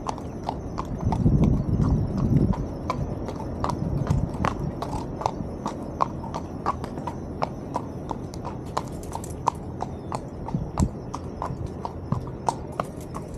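A horse's hooves clip-clopping at a steady walk, about two to three strikes a second, with a brief low rumble about a second in.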